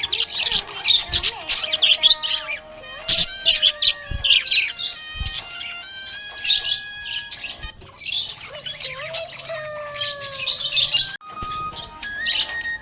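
Budgerigar chirping and warbling in quick, busy bursts of high notes, over background music that plays a simple melody of held notes.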